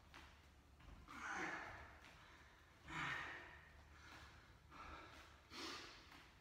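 A man breathing hard from exertion, with about four forceful exhalations spaced one to two seconds apart.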